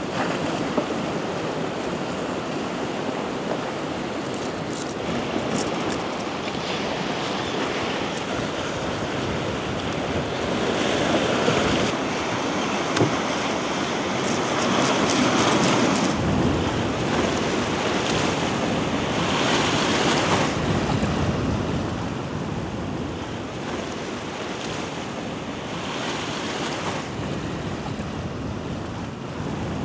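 Sea waves washing onto the shore, with several louder swells through the middle, and wind on the microphone.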